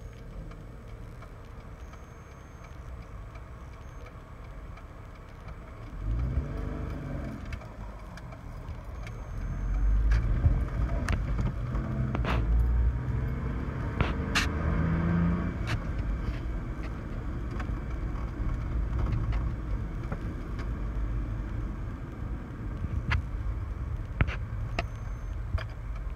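Car engine and road noise heard from inside the cabin. It is fairly quiet at first, then swells about six seconds in as the car pulls away, and the low rumble grows louder from about ten seconds, with a few short knocks and rattles.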